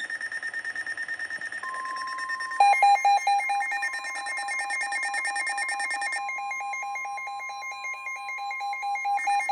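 Electronic emergency-alert tones from several receivers sounding at once for an EAS activation. A fast-pulsing beep starts first, the steady 1050 Hz NOAA Weather Radio warning tone joins about one and a half seconds in, and a louder pulsing, warbling receiver alarm comes in about two and a half seconds in. All three continue together.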